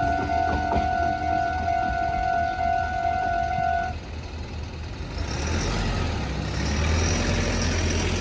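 Railway level crossing's electronic warning bell ringing, stopping about four seconds in: the train has cleared and the alarm switches off. A low road-vehicle rumble then swells as traffic moves over the crossing.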